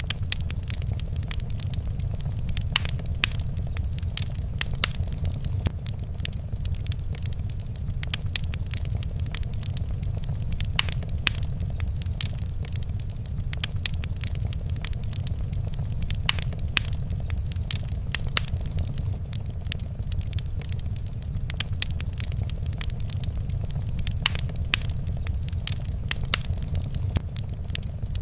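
Wood fire crackling in a fireplace: irregular sharp pops and snaps throughout, over a steady low rumble.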